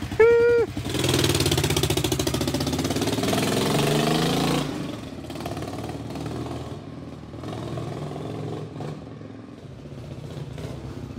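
Single-cylinder bobber motorcycle pulling away, its engine note rising as it accelerates, then dropping and fading about five seconds in as it rides off. A brief loud tone sounds just before it sets off.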